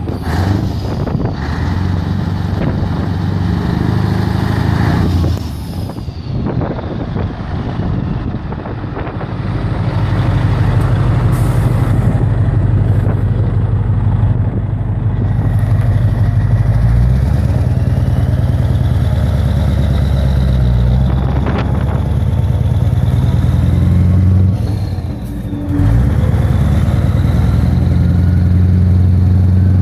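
Scania 143H 420's V8 diesel engine running, heard close to its exhaust. It grows louder about a third of the way in, with a short dip near the end.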